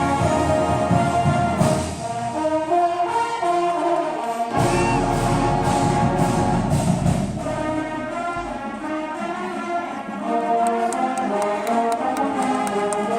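High school band playing, brass instruments holding full chords over percussion.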